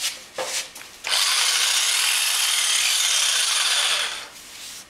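A few handling clicks, then an electric saber saw switched on and run for about three seconds, ending in a falling whine as it winds down.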